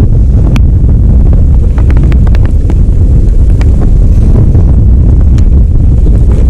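Wind buffeting an action camera's microphone on a kayak, a loud, steady low rumble, with scattered sharp ticks over it.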